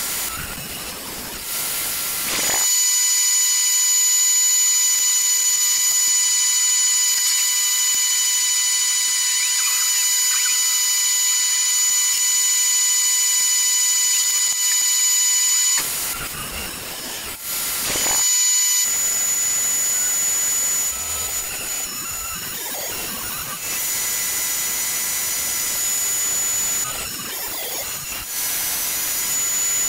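Table saw running with a steady high-pitched whine, ripping a glued-up jarrah and karri end-grain board into strips.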